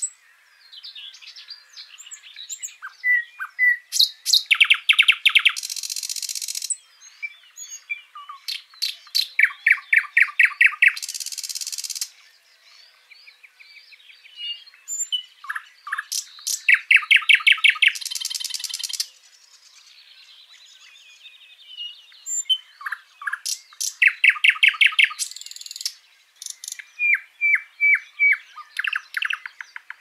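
Small birds chirping, with quick runs of short high notes, each run ending in a harsh rasping burst; the same phrase comes round about every seven seconds, as in a looped birdsong track.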